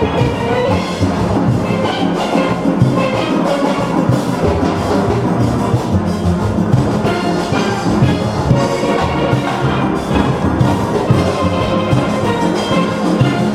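A full steelband playing: many steelpans sounding together over a steady drum and percussion beat.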